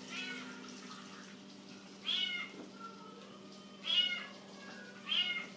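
A cat meowing: three clear short meows rising and falling in pitch, a second or two apart, with a fainter one at the start, over a faint steady low hum.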